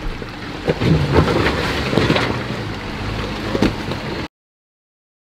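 Off-road vehicle engine running, with wind rushing across the microphone. A few short pitched swells rise out of it, then the sound cuts off abruptly to silence a little past four seconds in.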